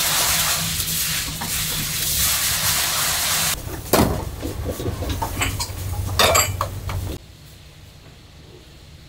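Commercial kitchen noise: a loud steady hiss for the first three and a half seconds, then pots, pans and dishes clanking and knocking, over a low steady hum. About seven seconds in it cuts to a much quieter room.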